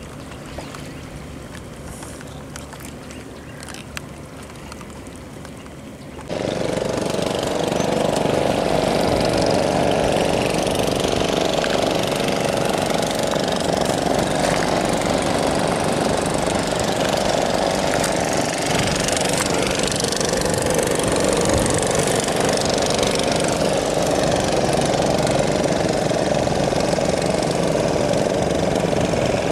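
A few seconds of quiet outdoor ambience, then an engine running steadily and loudly, starting suddenly about six seconds in.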